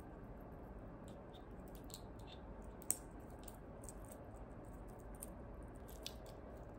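Metal link watch band clinking and clicking faintly as it is handled and fastened on the wrist, with one sharper click about three seconds in and a smaller one about six seconds in.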